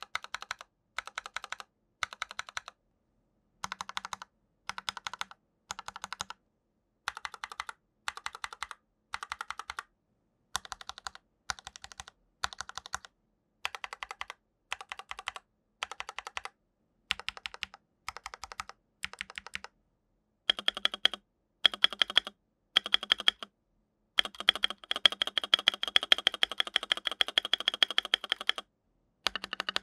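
Typing on a Rakk PIRAH mechanical keyboard in short bursts of rapid keystrokes with silent gaps, a comparison of its stock setup (Rakk Kalaw switches, thin stock PBT keycaps) with a modded setup (lubed and filmed Durock L7 switches, thicker Akko silent PBT keycaps). About 20 seconds in the sound changes to louder keystrokes with a high ringing note, and from about 24 seconds the typing runs on without a break for several seconds.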